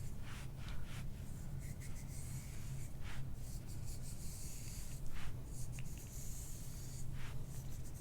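Soft, irregular rubbing strokes on skin as the neck and shoulder are massaged.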